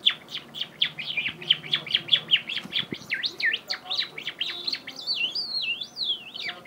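A man imitating birdsong with his mouth: a fast run of short high chirps, then from about halfway longer swooping whistles that rise and fall.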